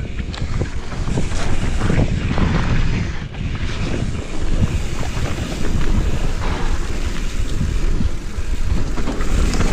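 Wind buffeting the action camera's microphone as a mountain bike descends a dirt trail at speed, over a steady low rumble of tyres on the ground and frequent short knocks and rattles of the bike over bumps.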